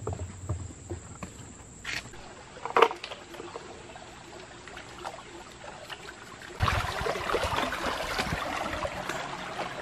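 A few knocks and thumps, the loudest a sharp knock about three seconds in. About two-thirds of the way through, water from a small spring starts suddenly and runs steadily, trickling and splashing over rocks.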